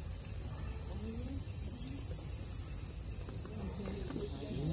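Steady, high-pitched insect chorus, with faint voices and a low rumble underneath.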